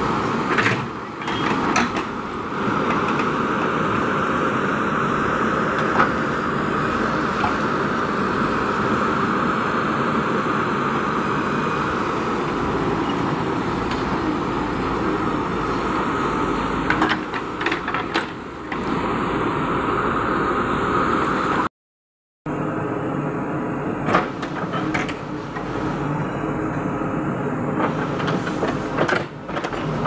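JCB 3DX backhoe loader's diesel engine running steadily under working load, with a steady high whine over it as the backhoe arm digs into the soil. Short knocks and scrapes from the bucket and arm come several times, and the sound cuts out for a moment about two-thirds of the way through.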